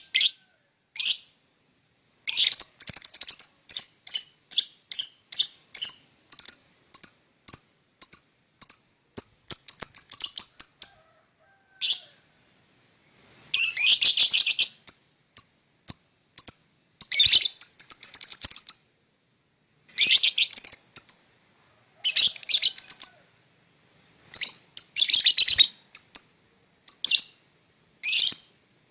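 Lovebird chirping: runs of quick, high, sharp chirps, several a second, broken by short pauses. Louder, denser bursts of calls come about halfway through and again several times toward the end.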